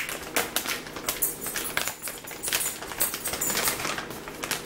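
Crinkling and crackling of a plastic snack pouch being handled and pulled at in an attempt to tear it open, with a quick run of irregular crackles.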